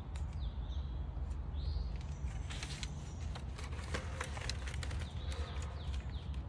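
Birds chirping now and then over a steady low wind rumble on the microphone, with a busy run of clicks and rustles in the middle.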